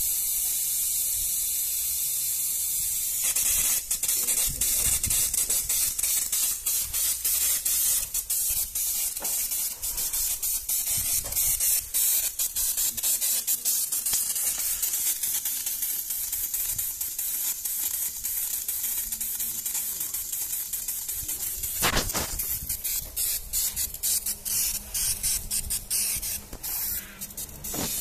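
Compressed air hissing through a homemade evaporator-cleaning sprayer, a pressurised bottle feeding a thin copper wand with a miniature nozzle. A steady hiss at first; from about three and a half seconds in it turns to a sputtering, crackling spray as liquid comes through.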